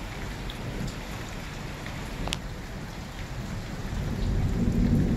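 Steady rain, with a low rumble of thunder that swells about four seconds in and grows louder toward the end. A single sharp tick comes about two seconds in.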